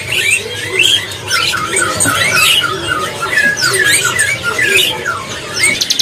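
Many caged songbirds chirping and whistling at once: a dense chorus of short rising and falling notes, with a quick run of similar repeated notes about a second or two in.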